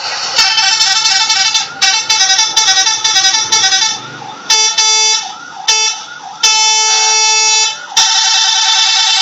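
Indonesian bus 'telolet' musical air horns. For about four seconds they play a quick tune of alternating notes, broken once near two seconds in. Then come several separate held horn blasts, the longest lasting over a second.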